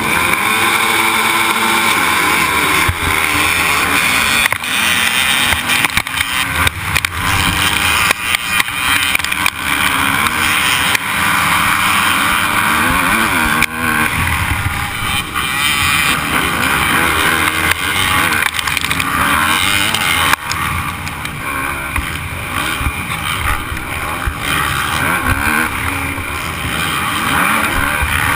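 Motocross dirt bike engines at full throttle off the start, the nearest bike's engine revving up and dropping again and again as it shifts, with the rest of the pack around it. Heard through a helmet-mounted camera, with wind noise on top.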